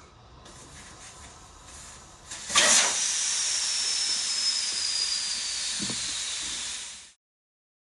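Compressed air hissing loudly and steadily at a tyre on a weld-repaired cast-aluminium wheel, with a faint whistle that slowly falls in pitch; it starts about two and a half seconds in and cuts off suddenly.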